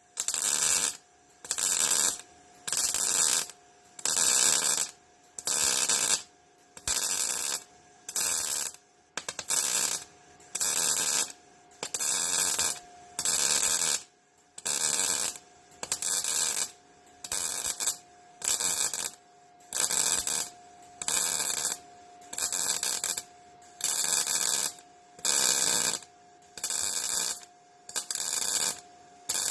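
MIG welder stitch-welding a sheet-steel floor patch, the arc crackling in short bursts of under a second, about one a second, with brief pauses between. A faint steady hum runs underneath.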